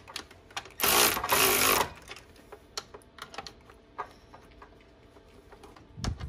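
Cordless electric ratchet running in a burst of about a second, driving a 10 mm nylock nut onto the bolt that holds a winch solenoid box. Small clicks and handling sounds follow, and the ratchet starts again near the end.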